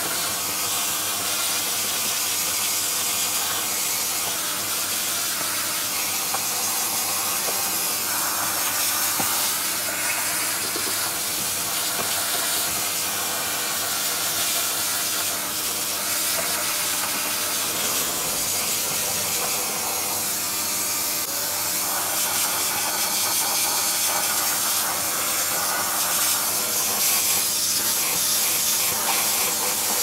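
Ingco wet-and-dry vacuum cleaner running steadily, its hose nozzle sucking dirt off a car's bare metal floor pan: an even, unbroken hiss of rushing air.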